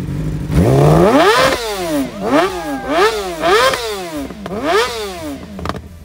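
Yamaha R6 sportbike's inline-four engine revved hard from idle, then blipped in a quick run of about five revs, the pitch climbing and falling each time, before dropping back toward idle near the end.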